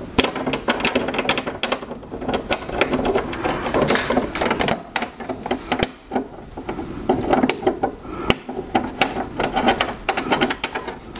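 Irregular metal clicking and rattling of a TV wall mount's bracket and its screws as they are started by hand into the back of a TV, with small taps and scrapes throughout.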